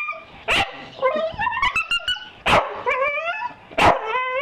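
Staffordshire Bull Terrier barking three times, with whining, yowling moans between the sharp barks that bend up and down in pitch: begging for food held out to it.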